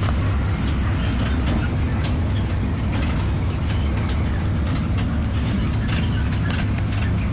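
Cabin noise inside a Golden Dragon XML6125J28C low-entry city bus: the engine's steady low drone, with scattered light clicks and rattles from the cabin fittings.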